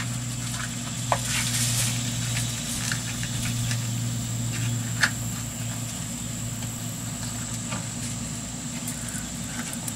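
Steady low hum like a running motor, with a faint high steady tone over it, and a few light clicks as small cartridges are handled on a bench, about a second in and again about five seconds in.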